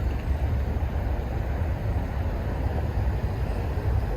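Steady low rumble under an even noisy hiss, with no distinct knocks or tones.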